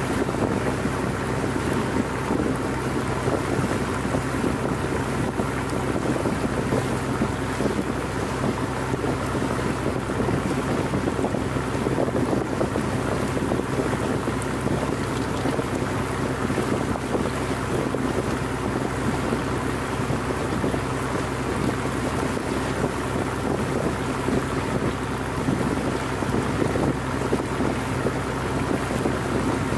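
The engine of an old wooden fishing boat running steadily as the boat cruises, with water and wind noise on the microphone.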